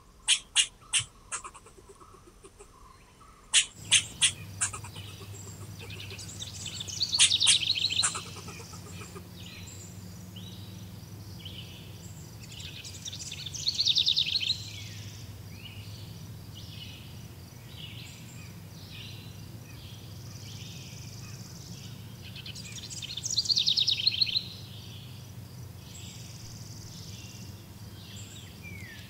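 Birds chirping and singing. A few quick sharp chirps at the start, then a loud trilling song phrase that comes three times, with softer repeated calls and a steady low background hum between.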